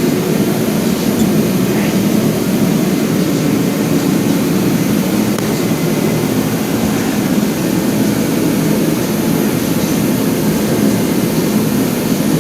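Loud shop heater running: a steady, even rushing noise with no breaks.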